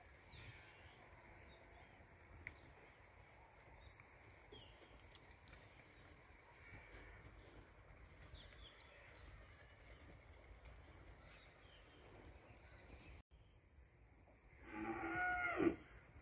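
A cow moos once, a short call of about a second near the end.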